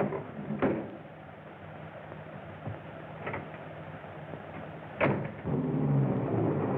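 A few knocks and clicks at the start, then a door slamming shut about five seconds in. Right after it, an old car's engine starts a steady low running hum.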